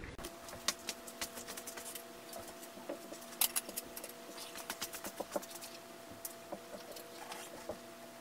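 Scattered small clicks and taps of hands working a hydraulic brake hose fitting at the handlebar brake lever, over a steady hum.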